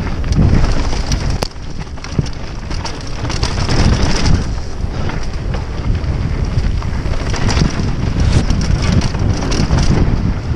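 Mountain bike riding fast down a dirt trail. Heavy wind buffets the camera microphone over the rumble of tyres on dirt, with frequent sharp clacks and rattles from the bike over bumps.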